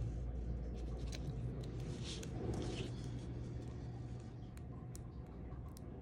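Soft rustling and scattered light clicks of hands folding a strap's edges over double-sided tape and pressing them down, over a low steady hum.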